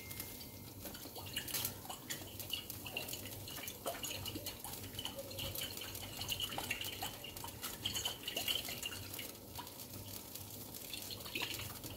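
Creamy chicken sauce simmering in a frying pan, with faint scattered pops and drip-like ticks as it bubbles.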